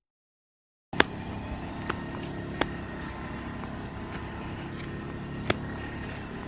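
About a second of silence, then steady outdoor background noise with a faint high steady tone. Over it come a few sharp, irregular clicks and slaps, the sound of sandals on stone slabs.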